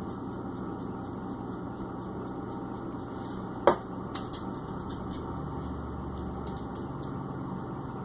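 Steady low indoor hum with a faint drone coming and going in the second half. Just under four seconds in there is one brief, sharp sound that drops quickly in pitch.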